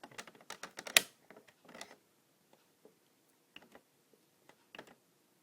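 A run of small plastic clicks from an Irritrol Rain Dial irrigation controller being worked by hand, its dial and buttons, with one sharp click about a second in and a few scattered clicks after.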